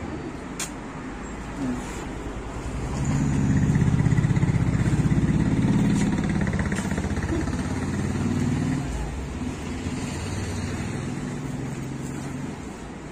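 Engine of a passing road vehicle: a low hum that swells about three seconds in and fades away over the next several seconds. A single sharp click comes just after the start.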